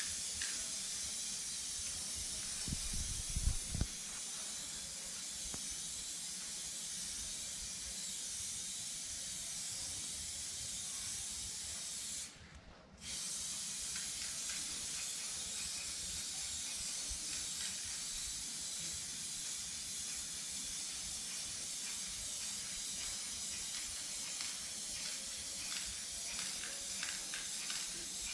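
Aerosol spray-paint can spraying onto a wall in one long steady hiss, cut off for about a second near the middle. A few low thumps come about three seconds in.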